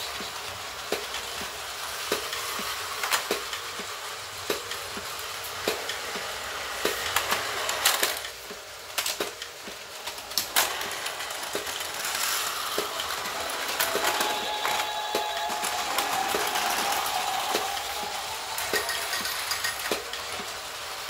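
Plarail toy train and station set running: a small battery motor whirring with a regular click repeating nearly twice a second, and a few louder plastic clatters near the middle.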